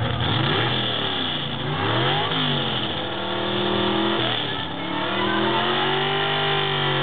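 Pulling pickup truck's engine revving hard as it drags a weight sled, the pitch climbing and dropping a few times before holding steady at high revs in the last couple of seconds.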